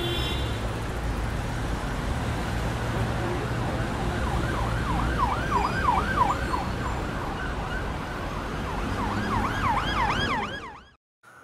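Emergency vehicle siren in fast yelp mode, its pitch rising and falling several times a second in two runs, over a steady rumble of street traffic. Everything cuts off suddenly near the end.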